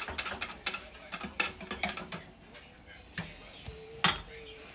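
Light clicking and tapping of dishes and small bowls being handled, a quick run of taps followed by a couple of sharper knocks near the end.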